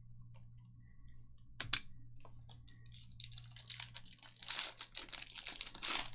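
A sharp click, then the foil wrapper of a trading-card pack crinkling and tearing as it is opened, over a steady low electrical hum.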